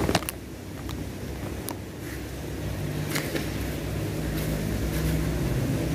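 A low, steady rumble that grows a little fuller after about two seconds, with a sharp click of the camera being handled at the start and a few lighter clicks and knocks later.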